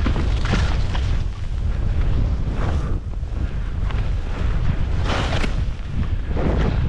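Wind buffeting a moving skier's camera microphone as a steady low rumble, with the hiss of skis scraping through snow swelling at each of several turns.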